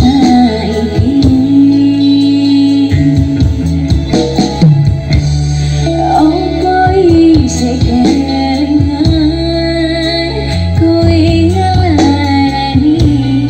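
A song with a female singing voice over strong bass, played loud through a miniature sound-system speaker box.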